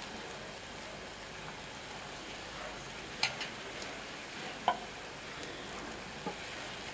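Broken-wheat kesari with fresh ghee sizzling faintly in a pan on the stove, a steady soft hiss. Two sharp taps, about three and four and a half seconds in.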